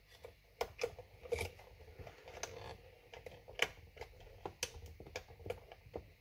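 Wire connectors being pushed onto the control circuit board of a Philips Senseo coffee machine by hand: irregular small plastic clicks and knocks with faint handling noise, the sharpest clicks a little past halfway through.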